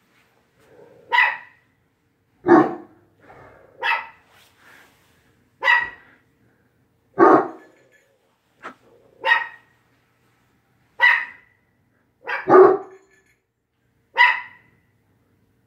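Irish Wolfhound barking: about ten single barks spaced roughly one and a half to two seconds apart, two in quick succession near the end.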